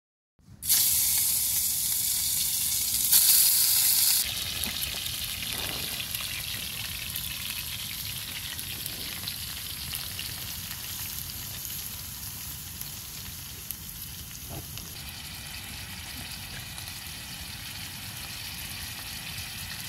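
Food frying in hot oil in a pan, a steady crackling sizzle. It starts suddenly and is loudest for the first few seconds, then settles to a quieter sizzle.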